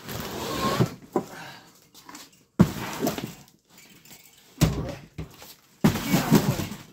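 Cardboard shipping box scraping, rustling and bumping as a mini-split outdoor unit is lifted out of it, in several noisy bursts with sharp knocks about two and a half, four and a half and six seconds in.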